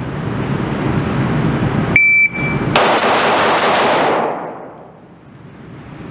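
An electronic shot timer gives one short high beep about two seconds in. About 0.8 s later a 2011-style competition pistol fires six rapid shots, roughly a fifth of a second apart, over about a second. The shots ring on in the echo of an indoor range.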